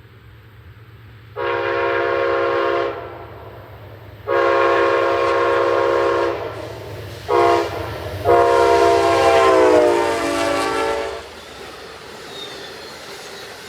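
Amtrak P42DC diesel locomotive sounding its air horn in the grade-crossing pattern: long, long, short, long. The last blast drops in pitch near its end as the train passes, over a low rumble from the train.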